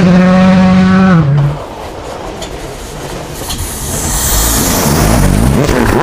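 A rally car's engine running at high revs, its note dropping and falling away about a second in. A second rally car then approaches on gravel, with a rising hiss of tyres and stones. Its engine note swings up and down as it arrives near the end.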